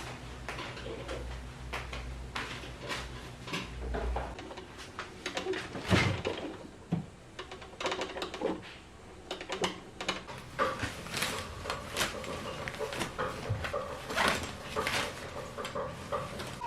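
Scattered clicks, knocks and handling noises of objects being moved about indoors, over a low steady hum, with the sharpest knock about six seconds in.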